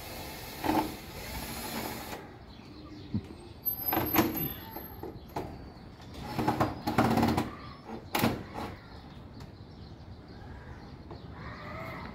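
Aluminium-framed glass door being handled and adjusted: scattered knocks and clicks from the frame and its fittings, the loudest about four, seven and eight seconds in.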